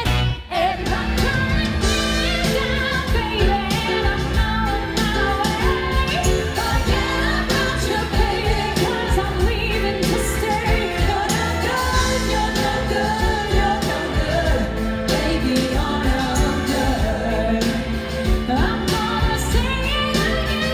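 A woman singing a song over full band backing music, with a brief dropout just after the start.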